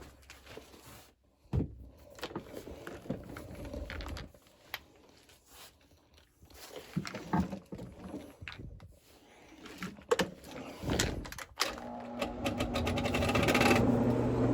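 Knocks and clatter of a floor machine being handled, then about 12 s in the 1.5-horsepower motor of a rotary carpet-cleaning machine starts and runs up to a steady hum, growing louder. It is slow to get moving because the outlet supplies weak power.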